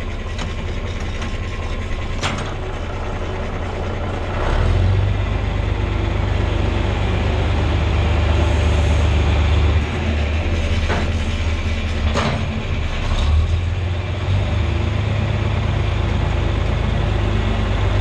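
John Deere 4020 tractor's six-cylinder engine running under load, getting louder about four seconds in, easing back around ten seconds and picking up again a few seconds later. A few sharp knocks come through it.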